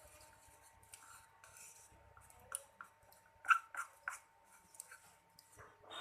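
Light, irregular clicks and scrapes of a slime mixture of talc powder and eucalyptus oil being stirred and handled in a small container, loudest about three and a half seconds in.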